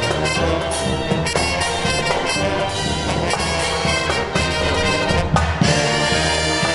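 A live marching brass band playing an upbeat number, with brass carrying the tune over a steady beat.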